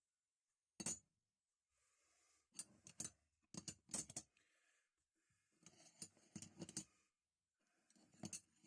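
Small steel adjustable wrenches being handled and set down: scattered faint metallic clicks and clinks, coming in small clusters.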